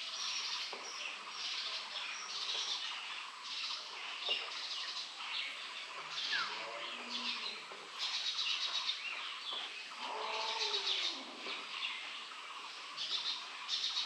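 Many small birds chirping and tweeting at once in rapid, overlapping bursts of high, short notes. About ten seconds in, a brief lower call falls in pitch.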